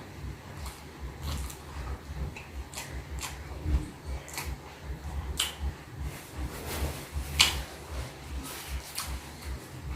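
Close-up eating sounds: chewing with irregular wet clicks and lip smacks over a low rumble, the sharpest smacks about four and seven seconds in.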